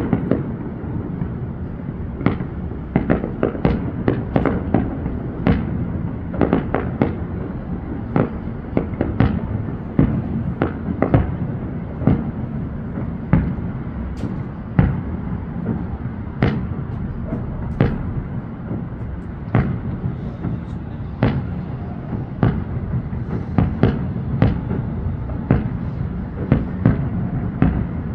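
Fireworks display: sharp bangs and pops at an irregular pace, about one or two a second, over a continuous low rumble.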